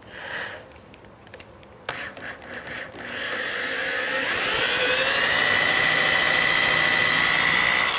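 Electric drill starting about three seconds in, its motor whine rising and then holding steady as the bit bores a shelf-pin hole through the story-pole guide hole into the bookcase's wooden side, winding down near the end. A few light knocks come before it starts.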